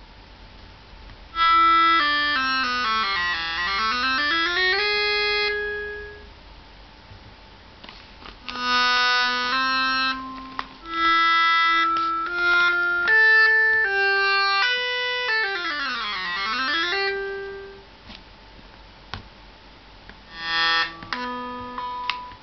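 Tablet software synthesizer playing electronic notes. Twice a note glides down in pitch and back up; in between come runs of stepped notes, with short pauses between phrases.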